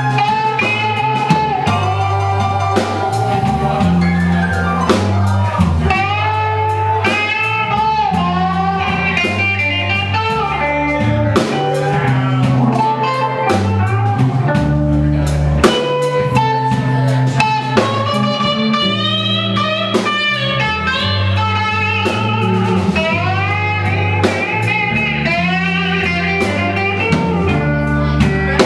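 Live blues band playing an instrumental passage: an electric guitar lead with notes that bend up and down over bass and a drum kit.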